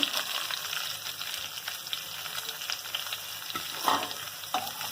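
Thin slices of raw mango sizzling in hot oil with a mustard-seed and curry-leaf tempering, as they are added to the pan and stirred, with a few short spatula scrapes about three and four seconds in.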